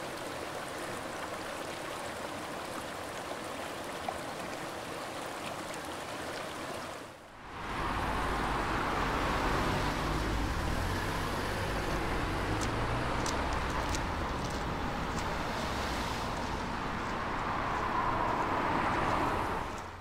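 Steady rush of water from a flowing stream. About seven seconds in it dips briefly, then returns as a louder, fuller rush of running water with a low rumble underneath.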